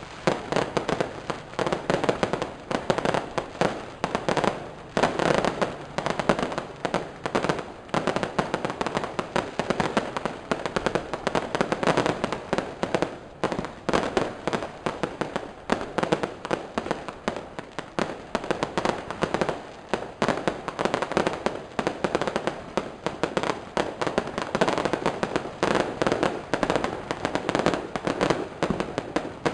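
Fireworks and firecrackers going off in a dense, unbroken run of sharp bangs and cracks, many each second.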